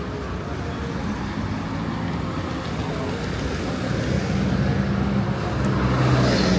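Road traffic: engines of passing vehicles, with one engine growing louder over the last couple of seconds and dropping in pitch as it passes close.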